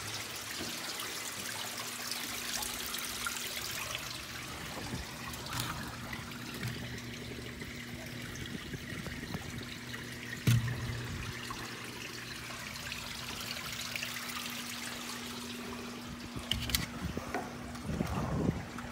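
Water trickling and running along a wet rock tunnel floor, a steady sound throughout. It is joined by occasional knocks and scuffs, one louder about halfway through and several near the end, over a faint steady low hum.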